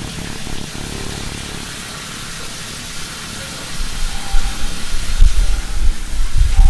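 Shower running, a steady hiss of spray. About four seconds in, a loud, uneven low rumble joins it.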